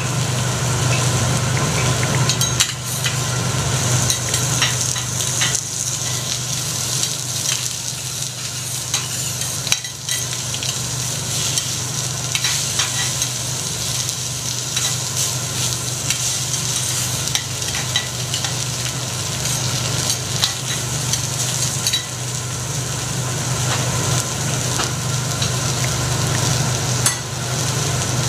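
Food frying on a teppanyaki iron griddle: a steady sizzling hiss over a steady low hum, with scattered sharp clicks throughout.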